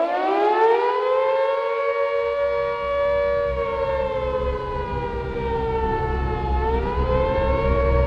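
Air-raid siren winding up to a steady wail of two close, clashing tones, dipping in pitch and climbing back near the end. A low rumble joins beneath it about two seconds in.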